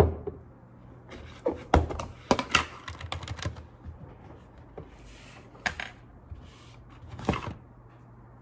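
Typing at a desk: irregular runs of clicks and taps on a computer keyboard and mouse, after a knock at the start as the camera on the desk is handled.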